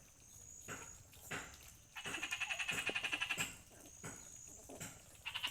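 A rapid rattling trill of about fifteen even pulses a second, heard from about two seconds in for a second and a half and starting again near the end, with a few soft knocks in between.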